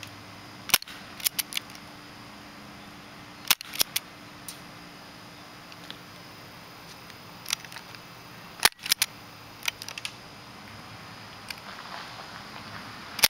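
HK USP airsoft pistol firing single shots: about ten sharp snaps at irregular intervals, several in quick pairs.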